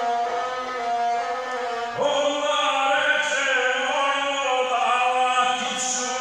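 Gusle, the single-stringed bowed Balkan fiddle, playing a steady line. About two seconds in, a man's voice joins, chanting an epic song in the guslar style over the instrument.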